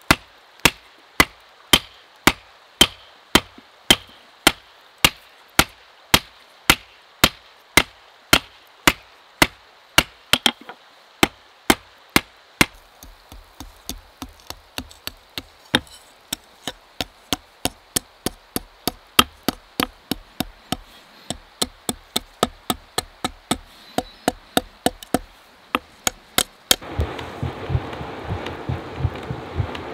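Hand hammer striking hot mild steel on a small anvil, a steady run of blows at about two to three a second. After about ten seconds the blows come quicker and lighter. Near the end a steady rushing noise from the forge sets in under the last light blows.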